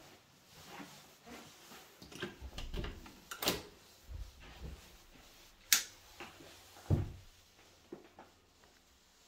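A cupboard door being opened and handled: a brushing rush, a sharp click a little over halfway through, then a dull thump, with smaller knocks around them.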